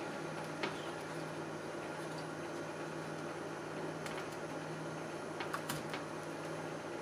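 A steady low electrical hum with a few light, sharp clicks and taps, about half a second in, around four seconds in and a pair just before six seconds.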